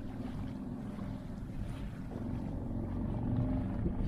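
A small motorboat's petrol engine running steadily as the boat moves across the lake, with wind on the microphone.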